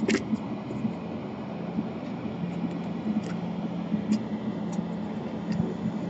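Steady low hum of a fan running, with a few faint light clicks of a metal tool touching the laptop motherboard.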